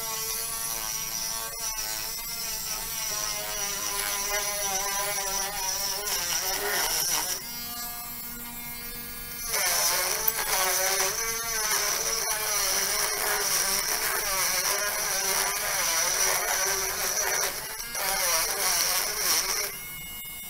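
Cheap BEF mini rotary tool running at full power, its coarse sanding drum pressed into a block of medium wood: a motor whine with sanding hiss, the pitch wavering under the load. The sanding lets up for about two seconds near the middle, then resumes and stops shortly before the end.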